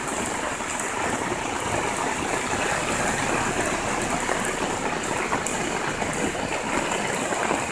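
Steady rush of water in a flooded street during heavy rain: floodwater flowing and rain falling, an even, unbroken noise.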